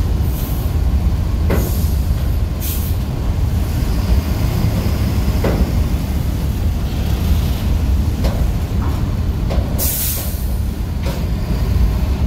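Double-decker bus's diesel engine labouring at low speed as it pulls slowly onto the ferry. Its sluggish pull is taken for a wrong gear choice. Several short air hisses from the bus's air system break in, one about ten seconds in.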